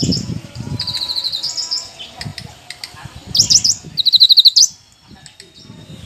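Caged cucak kinoi leafbird singing high, rapid trills: one run about a second in, and a louder burst of fast trilled notes from about three and a half to four and a half seconds.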